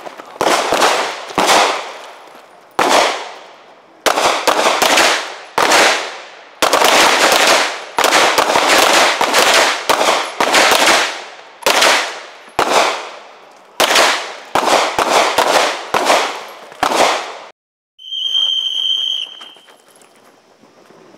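Strings of gunshots, single shots and quick bursts of several, each crack ringing off with a short echo. Near the end the firing stops abruptly, followed by a high steady beep lasting about a second and a half.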